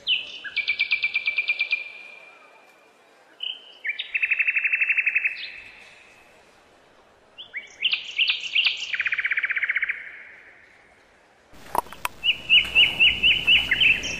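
A songbird singing three songs, each a few short opening notes followed by a fast trill, with pauses between. Near the end a different recording cuts in, with a quick series of about eight chirps over more background noise.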